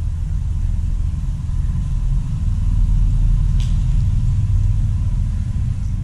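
A steady low rumble that swells around the middle and eases near the end, with one short click about three and a half seconds in.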